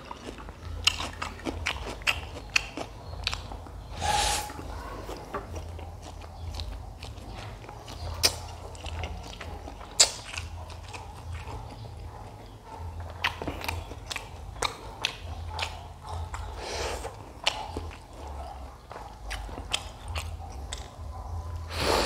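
Close-miked eating of noodles: chewing with many small wet mouth clicks and a few louder noisy smacks, over a steady low hum.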